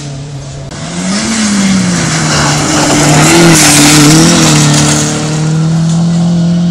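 Rally car engine running hard on a gravel stage, its pitch rising then falling. As the car slides past, gravel and dust spray hiss from the tyres about midway.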